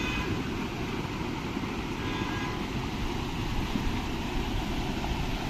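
River water rushing, a steady noise, with faint voices of people in the background.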